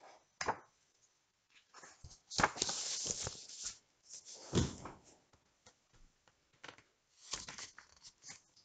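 A hardcover picture book being opened and its pages handled: several bursts of paper rustling and handling noise, the longest about two and a half seconds in, with a few short knocks near the end.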